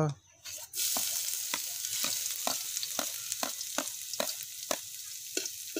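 Minced garlic hitting hot cooking oil in a metal wok and sizzling, the hiss starting suddenly just under a second in and going on steadily. Short clicks sound about three times a second over the sizzle.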